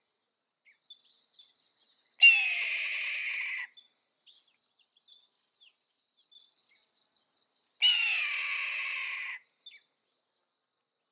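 Red-tailed hawk giving its hoarse, raspy scream twice, each call about a second and a half long and falling slightly in pitch.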